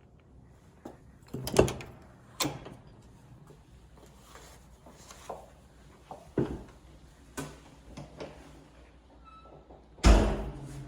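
A series of knocks and clunks from doors being opened and shut in a small room, about ten in all, with the loudest a heavy clunk near the end.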